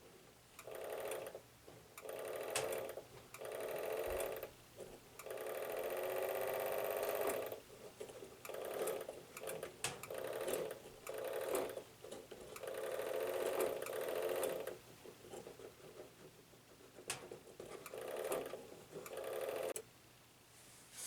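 A small motor-driven mechanism buzzing and rattling in about ten short runs of uneven length, stopping and starting again.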